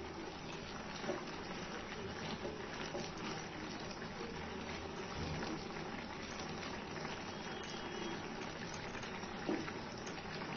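Chopped tomatoes bubbling as they cook down in a kadai over a medium gas flame, stirred with a spatula. A couple of light knocks of the spatula on the pan come about a second in and near the end.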